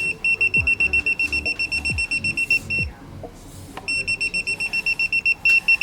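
TK318PLUS digital multimeter's buzzer beeping rapidly and evenly in its non-contact voltage detection mode, the sign that it senses a live conductor. The beeping stops for about a second near the middle, then starts again.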